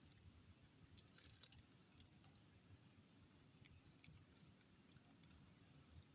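Crickets chirping in the night forest: faint short trills at one high pitch, coming in groups and clustered between about three and five seconds in, with a few faint clicks.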